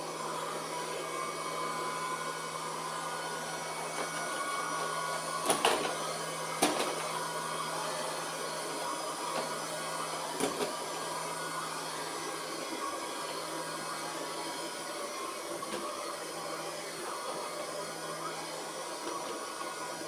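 Robot vacuum-mop running with a steady whirr and hum, broken by three short sharp knocks in the first half.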